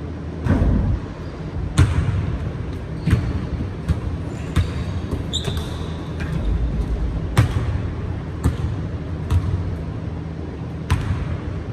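A basketball bouncing on a hardwood gym floor in irregular dribbles, about ten sharp thuds, with a brief high sneaker squeak about halfway through. A steady low hum runs underneath.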